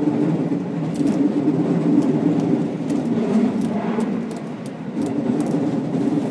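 Passenger train running along the track, heard from inside the car: a steady rumble of wheels and running gear with faint scattered ticks.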